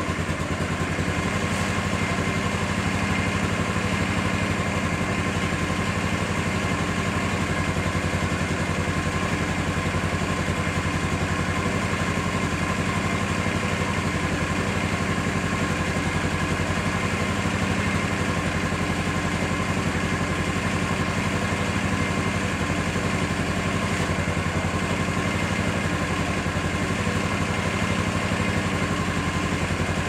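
Yamaha SR500's single-cylinder four-stroke engine idling steadily at an even pace.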